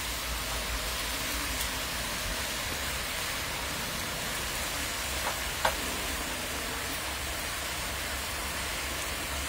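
Steady sizzling hiss of food cooking in a pot over an open fire, with one light knock about five and a half seconds in.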